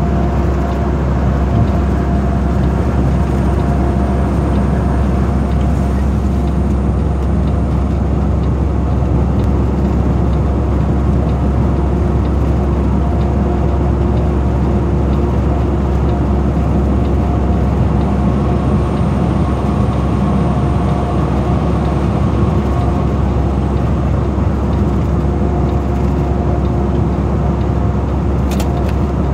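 Semi-truck cruising at highway speed, heard from inside the cab: a steady low engine drone with a few held tones, mixed with road and wind noise.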